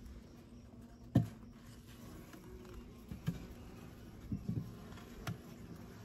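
Honey bees humming steadily around an open hive, with a few short knocks and handling rustles, the sharpest about a second in.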